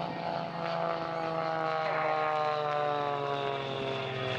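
Piston-engined XA41 propeller aerobatic planes flying past, their engine and propeller drone falling steadily in pitch as they go by.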